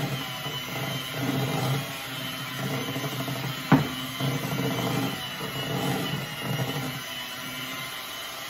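Electric hand mixer running steadily, its beaters whirring through a thick powdered-sugar icing in a glass bowl, the hum swelling and easing as the bowl is worked. One sharp clack a little under halfway through.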